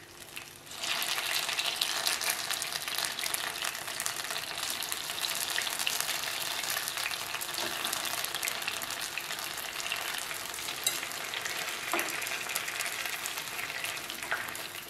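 Patra rolls sizzling in shallow oil in a non-stick pan as they are turned onto their other side. The sizzling jumps up about a second in and stays steady, with a few light clicks of the utensil against the pan.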